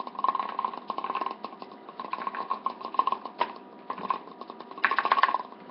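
Vinyl bobblehead figure's head wobbling on its spring, rattling in several bursts of rapid small clicks.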